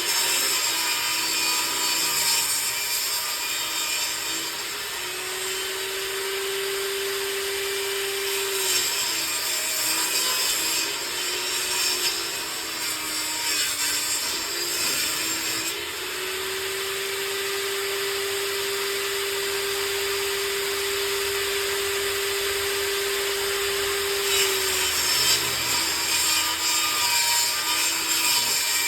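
Table saw ripping old wooden boards lengthwise. The motor's hum sags and wavers in pitch while a board is fed through the blade and holds higher and steady when it runs free, twice for several seconds, over the steady hiss of the saw.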